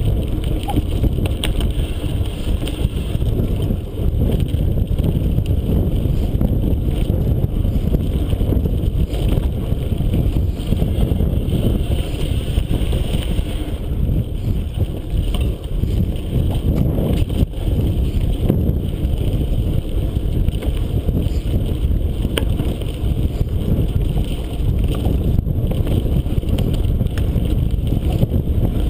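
Mountain bike ridden over a rough dirt singletrack: steady wind buffeting on the microphone over the rumble and rattle of tyres and frame on the bumpy trail, with an occasional sharper knock.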